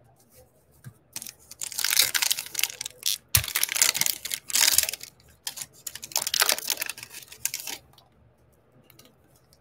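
Foil wrapper of a 2020 Topps Fire baseball card pack crinkling and tearing as it is ripped open by hand, in a run of bursts from about a second in until near 8 seconds. After that only a few faint ticks.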